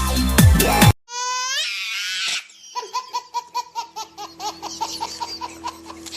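A burst of dubstep music cuts off suddenly about a second in. A high-pitched voice then laughs in a fast run of short 'ha' pulses, about six a second, to the end.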